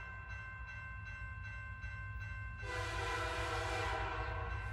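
Steady low rumble of a train with a faint regular clatter of wheels. About two and a half seconds in, a loud train horn blast with a hiss starts and holds through the end.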